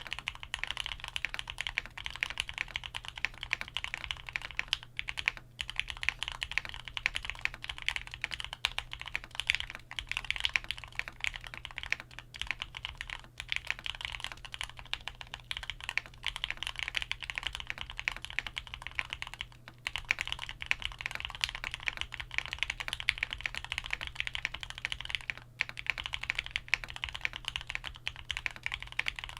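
Qwertykeys QK100 mechanical keyboard with stock Gateron Oil King linear switches, DCX keycaps, a carbon-fibre plate and foam, typed on fast and continuously, with a few brief pauses.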